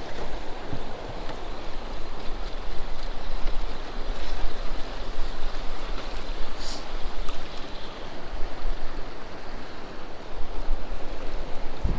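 Steady wash of water and wind noise, with wind rumbling on the microphone now and then.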